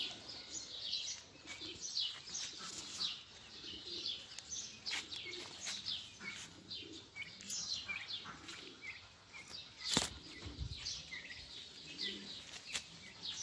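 Small birds chirping continually, many short high chirps overlapping, with a single sharp knock about ten seconds in.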